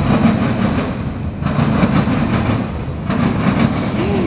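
Freight cars of a CSX mixed freight train, tank cars and covered hoppers, rolling past close by: steel wheels running on the rails with clickety-clack, and a louder clatter about every second and a half.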